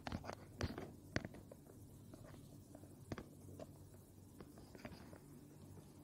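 Faint scratching and tapping of a marker pen writing on a whiteboard, in short separate strokes.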